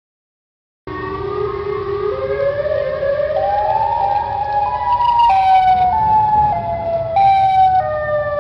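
Outdoor civil-defence warning siren. The sound drops out completely for about the first second, then the siren winds up in pitch, peaks about four seconds in, and slides back down in steps.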